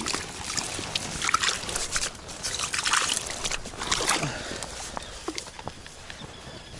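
A plastic bag crinkling and dry grass rustling in irregular bursts as a freshly caught fish is handled into the bag, with a few sharp clicks; the handling noise dies down after about four and a half seconds.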